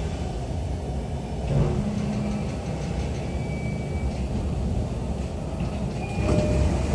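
Steady low rumble inside a JR East E233-series electric commuter car standing at a platform, with a short burst of noise about one and a half seconds in. Near the end a repeated electronic chime sounds with a couple of clicks as the doors open.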